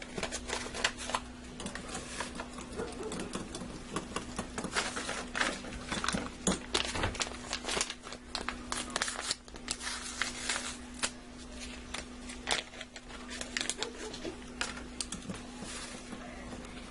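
Paper gravy-mix packets crinkling and tearing, with irregular clicking and scraping of a spoon stirring the powdered gravy and onion soup mix into hot water, over a steady low hum.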